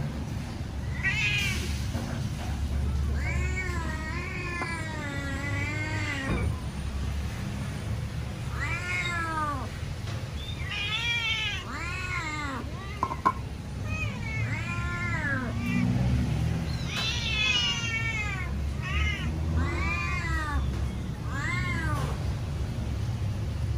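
Domestic cat meowing loudly and insistently for food, about a dozen meows, including one long wavering meow near the start.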